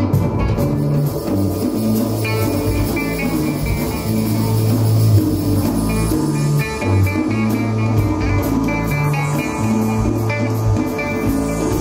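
Live instrumental psychedelic rock: a mandola picked in quick runs over held, slowly changing bass notes, with drums and a steady cymbal wash.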